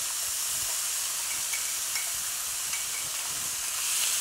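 Finely chopped onion sizzling in a hot skillet as it is stirred with a spatula. The sizzle is a steady hiss with a few faint ticks, and it grows a little louder near the end.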